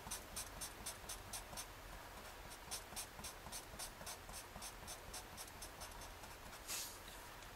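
Felt-tip marker scratching on paper as it shades in a solid area: faint quick back-and-forth strokes, about four a second, with one longer stroke near the end.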